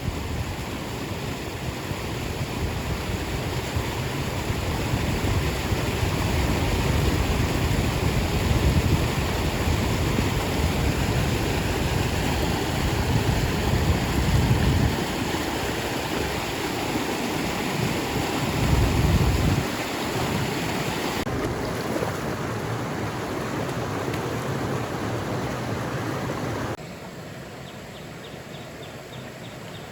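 Wind buffeting the microphone as a gusting low rumble over a steady rushing noise outdoors. The sound changes abruptly about 21 seconds in and drops to a quieter rush about 27 seconds in.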